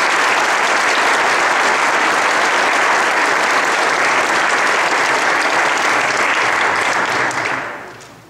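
Audience applauding steadily after a song ends, dying away near the end.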